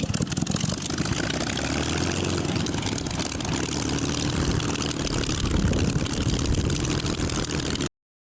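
Aircraft engine running steadily, with a faint low hum under a rushing noise; it cuts off abruptly near the end.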